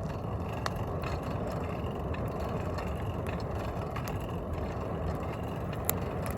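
Wood fire forge burning juniper wood with a steady rushing noise and a few sharp crackles, the clearest near the end, while rebar steel heats in it.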